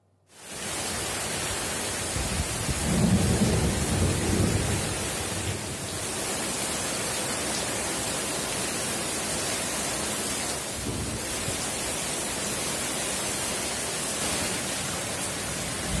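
Heavy rain pouring steadily, fading in just after the start, with a low rumble of thunder swelling between about two and five seconds in.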